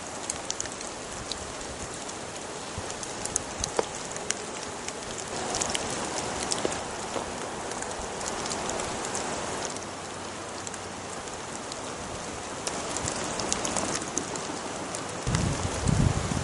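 Steady rain falling through woodland, with a constant hiss and many individual drops ticking close by. The rain thickens for a few seconds in the middle, and there is a brief low rumble near the end.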